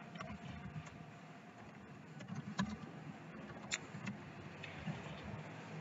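Faint computer keyboard keystrokes, a few irregular clicks at a time, over a low steady background hum.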